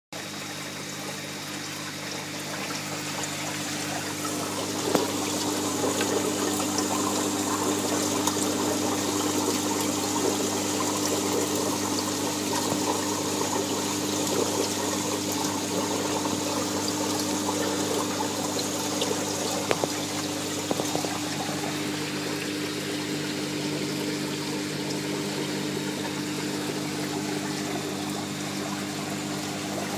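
Water pouring and trickling into a marine aquarium sump, over the steady low hum of the running return pump. It grows louder over the first few seconds, then holds steady, with a couple of small knocks about five seconds in and near twenty seconds.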